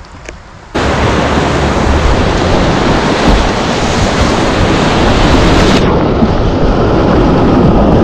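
Loud rushing and churning of whitewater rapids, heard close from a kayak running them, with wind buffeting the microphone. It starts abruptly a little under a second in, and the hiss turns duller about six seconds in.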